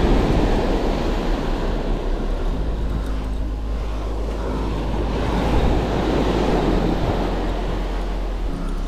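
Sea surf breaking on a beach, swelling twice, with a steady low wind rumble on the microphone.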